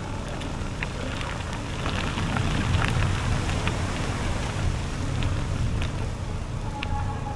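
Bicycle riding along a trail: steady crackling tyre noise with scattered short clicks, over a low wind rumble on the microphone that swells in the middle.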